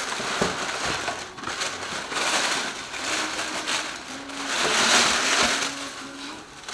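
Packaging rustling and crinkling as it is handled, in irregular swells, loudest about five seconds in.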